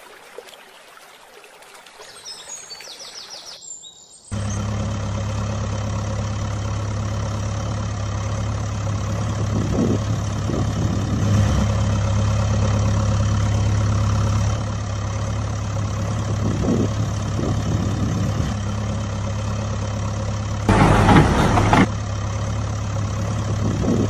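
Engine running steadily at idle with a low hum, setting in about four seconds in after a faint, quiet stretch; a brief louder rush of noise comes near the end.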